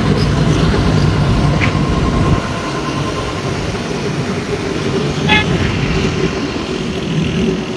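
Heavy vehicle engine running steadily, a little quieter from about two seconds in, with a brief high beep about five seconds in.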